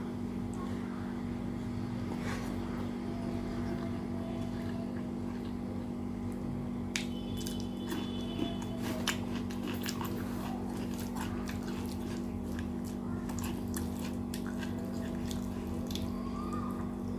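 Close-miked eating sounds: wet chewing and mouth clicks from rice with curd and rajma curry, the clicks coming thicker from about halfway in, over a steady low hum.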